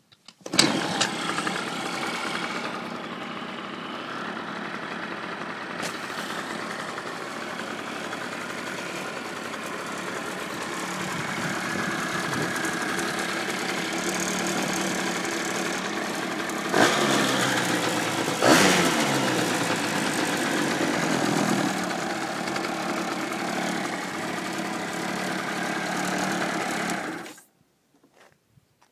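A 95cc quad bike engine starts and idles steadily. Two short blips of the throttle come about two-thirds of the way through, the pitch rising and falling back. The engine then cuts off suddenly near the end.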